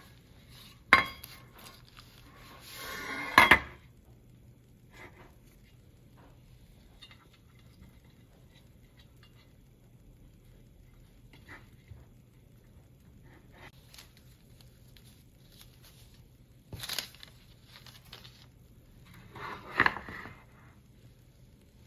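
Kitchen handling sounds: a metal muffin tin knocking and scraping on a wooden board, with faint taps and a paper rustle as pastry squares are pressed into its cups. The loudest knocks come about a second in and again near three and a half seconds.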